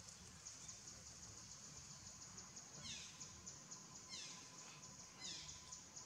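Faint outdoor ambience: a steady, high, fast-pulsing insect chorus, with three short high-pitched animal calls that fall in pitch, a little over a second apart, in the second half.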